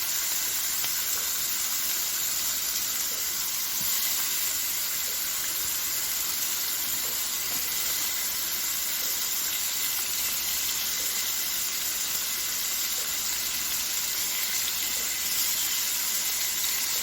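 Small pieces of bacon frying in a pan, sizzling steadily.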